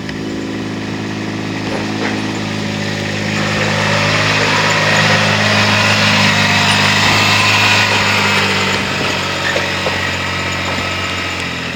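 Vehicle engine running steadily, growing louder for a few seconds in the middle and then easing off.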